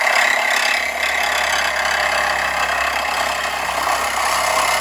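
Base-model brushed Hart cordless reciprocating saw cutting through an old, badly rusted exhaust pipe, running steadily with the blade rasping through the metal.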